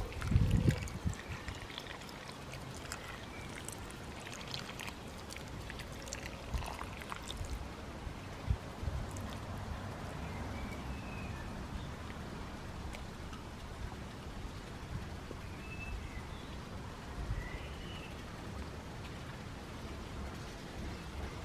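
Water pouring and trickling from a plastic watering can's spout onto potting compost in plant pots, with a low thump about half a second in.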